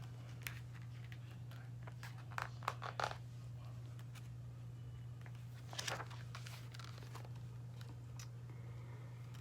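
Paper rustling from a picture-book page being turned, with crisp crinkles about two to three seconds in and again about six seconds in, over a steady low hum.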